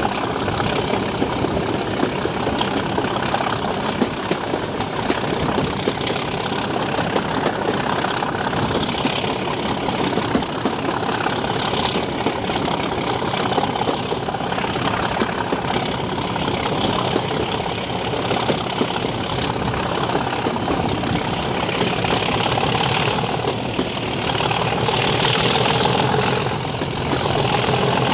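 Class 37 diesel locomotive's English Electric 12-cylinder turbocharged engine working under power on the move, with a steady high turbocharger whistle that rises in pitch near the end.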